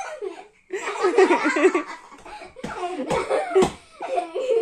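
Girls laughing hard in bursts, with a few bumps near the middle.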